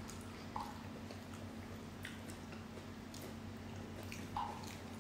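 Quiet eating sounds from a seafood meal: chewing, with a few soft clicks and taps from a wooden spoon and fingers working food on a wooden board, over a low steady hum.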